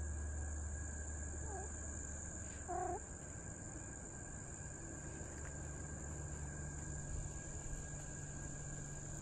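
Steady high-pitched insect chorus, crickets or similar, with two short animal calls about one and a half and three seconds in, the second louder.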